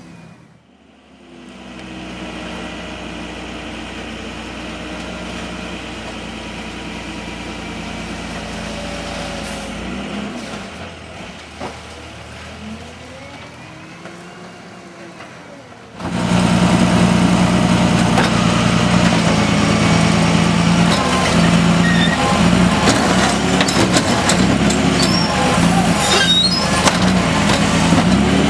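International/Bridgeport pup garbage truck's engine running as the truck drives up a narrow street, its pitch rising and falling as it pulls. About halfway through, the engine is suddenly much louder and close by, running steadily with clanks and rattles from the collection work near the end.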